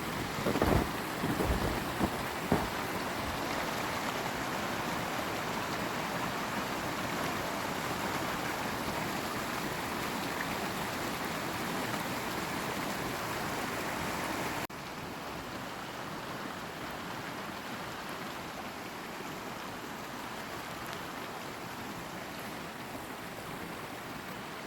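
Steady rush of flowing water, with a few knocks in the first seconds. About halfway through it cuts abruptly to a slightly quieter, steady rush.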